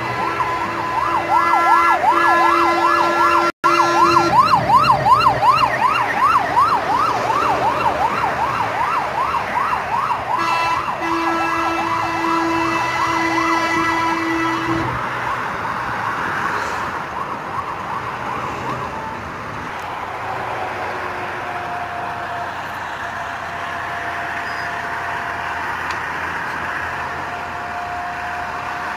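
Fire engine siren wailing in a fast rising-and-falling yelp, with a lower steady horn tone sounding in stretches over it. After about fifteen seconds it fades away, leaving steady traffic noise.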